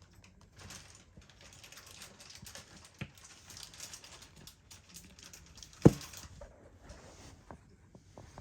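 Light rustling and small clicks of flat-pack furniture parts being handled during assembly, with one sharp knock just before six seconds in.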